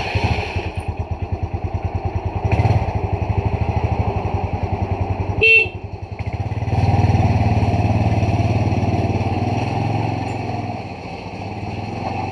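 Small vehicle engine idling with an even pulse, then a single short horn beep about five and a half seconds in: the horn signal that sets off an automatic gate. The engine grows louder after the beep.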